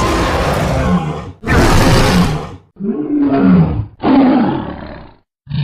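Tyrannosaurus rex roar sound effect: a run of deep roars, each about a second long, with short gaps between them. The first two are harsh and bright. The later ones are duller, with a low pitch that swoops up and down, and a fresh roar begins right at the end.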